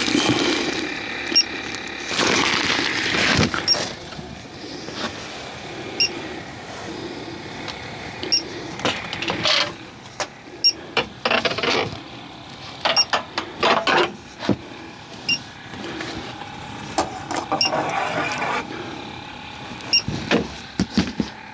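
Irregular clicks, knocks and rattles of hands working on an air conditioner's indoor unit, with metal parts and tools being handled, over a faint steady tone.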